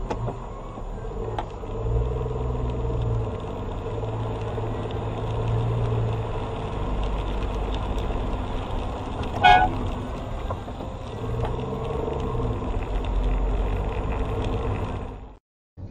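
Steady engine and road noise heard from inside a car on a wet road, with one short car horn honk a little past halfway. The sound cuts off abruptly near the end.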